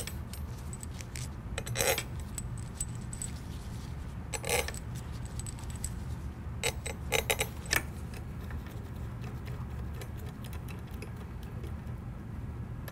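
Steel socket head cap screws clinking against a metal carriage plate as they are set into their holes and turned in by hand: a few sharp metallic clinks about two seconds in and again a little after four seconds, then a quick cluster of clinks near the middle, over a low steady hum.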